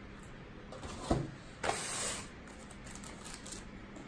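Plastic packaging being handled as parts are taken out of a figure's box: a knock about a second in, then a short scraping rustle.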